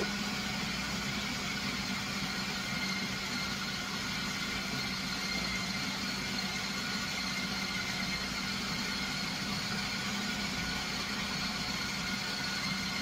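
Electric food processor running steadily with a constant hum, grinding frozen pork into a smooth paste for nem nướng.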